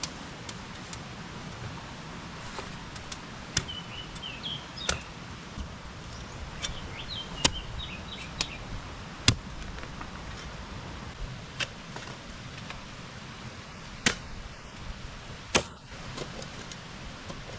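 Sharp clicks and knocks at irregular intervals, roughly one every second or two and loudest about nine seconds in, over a low steady rumble. Twice a short run of high twittering chirps.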